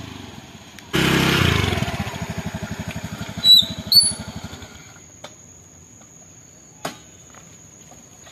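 Motor scooter engine running close by, its even beat dying away about five seconds in as it is switched off. Two short, loud, high squeaks come around three and a half and four seconds, and a steady high insect trill runs behind, with a few faint clicks.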